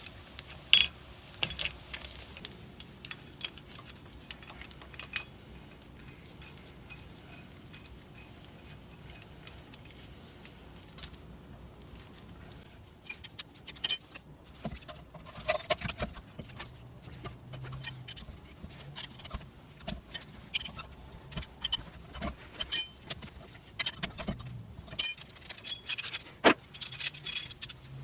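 Scattered metallic clinks and clicks of a brake caliper piston wind-back tool being fitted into a rear caliper and turned to twist the piston back in, busier in the second half.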